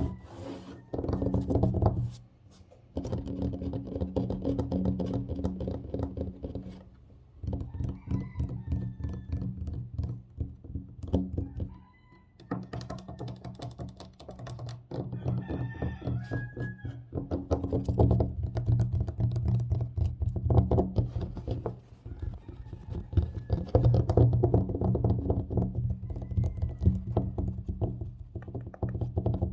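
Fast, aggressive tapping and scratching on a tabletop: dense runs of rapid knocks with a low, resonant body, broken by a few short pauses.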